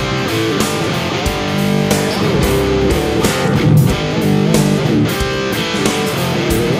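Live instrumental rock band playing: electric guitar lines over bass and a steady drum beat.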